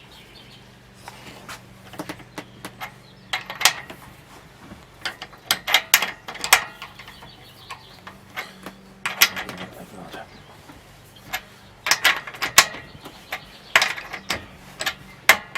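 Metal hand tools working on a motorcycle swing arm spindle's fastenings: clusters of sharp metallic clicks and clanks, several bursts a few seconds apart.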